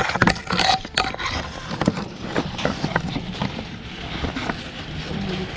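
Rustling leaves and branches of a custard apple tree, with many irregular sharp clicks and snaps as twigs and fruit are handled.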